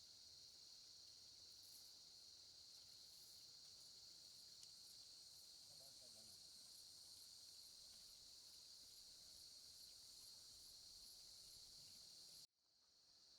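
Faint, steady high-pitched chirring of insects, an even drone with light regular pulses. It cuts out abruptly near the end and fades back in.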